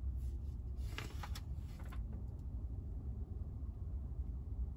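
A steady low rumble, with a few soft rustles of a paper instruction booklet being handled in the first couple of seconds.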